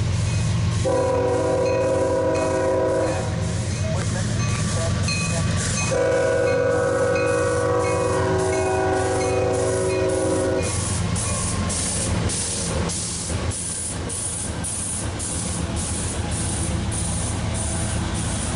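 Freight train's diesel locomotive sounding its air horn in two long blasts, the second longer, over the steady rumble of its engine. A rapid, regular clicking runs throughout.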